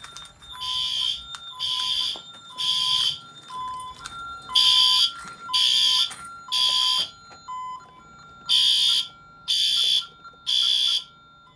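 Alarm horn of a Honeywell Vista 20P security/fire alarm system sounding in groups of three pulses with a pause between groups, the temporal-three pattern. A fainter two-tone beep alternates steadily underneath.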